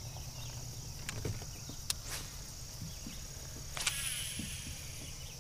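Steady high-pitched chorus of insects, with a low background rumble. A few sharp clicks and light knocks break in, the loudest about four seconds in.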